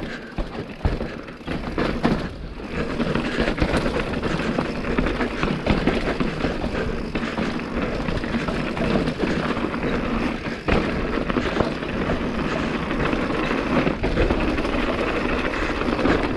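Mountain bike rolling over a rough, rocky trail: a steady rattle and crunch of tyres on loose rock, full of small knocks.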